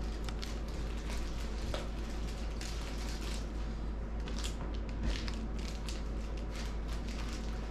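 Steady low hum and hiss of room noise with faint scattered clicks and rustles of handling; no speech.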